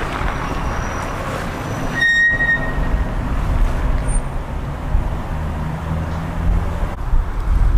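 Mercedes-Benz GLC 250 4Matic's engine and exhaust heard from behind as the SUV drives slowly, a steady low rumble. A short high tone sounds about two seconds in.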